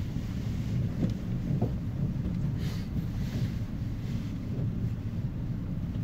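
Steady low rumble inside a cable car cabin as it travels along its cable, with a couple of faint brief hisses near the middle.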